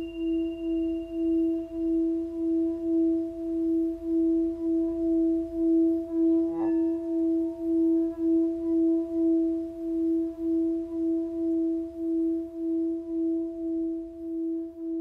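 A sustained, steady drone tone that wobbles in loudness a few times a second, with fainter higher tones above it. A brief click comes about six and a half seconds in.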